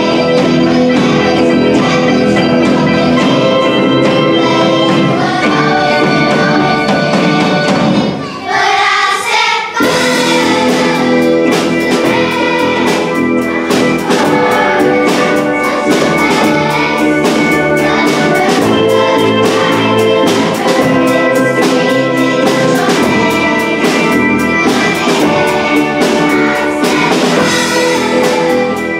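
Large children's choir singing with drum and instrumental accompaniment. The music thins out briefly about eight seconds in, then comes back with a steady drum beat.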